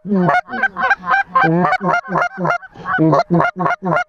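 Goose calls blown in a fast, unbroken run of honks, about four to five a second, each note bending up and then down, calling to a flock of snow geese circling overhead.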